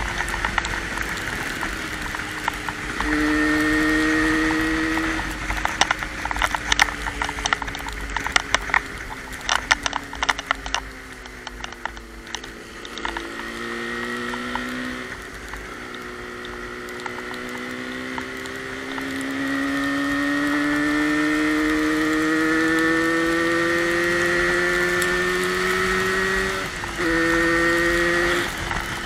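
Yamaha RD350 two-stroke parallel-twin engine running under the rider, its pitch stepping up and down through gear changes and then climbing steadily for several seconds as it pulls hard. A run of sharp clicks sounds over it a few seconds in.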